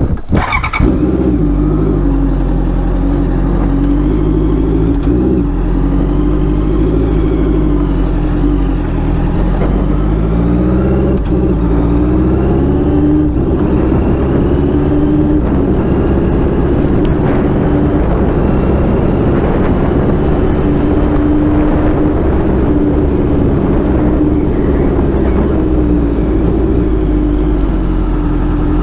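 Honda CBR650F's inline-four engine running while the motorcycle is ridden, its pitch rising and falling gently with the throttle.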